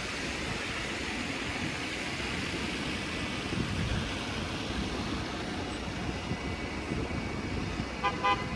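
City road traffic passing on a wet street, a steady rumble and hiss of vehicles and tyres, with a brief horn-like toot near the end.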